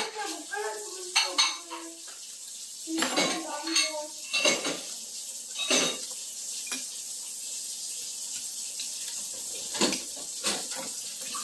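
Chopsticks clinking against a ceramic plate and bowls while eating, about eight sharp separate clinks spread out, with a quieter stretch between about six and ten seconds in.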